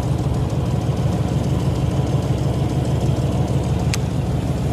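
Boat engine running steadily with a low, even drone. A short click about four seconds in.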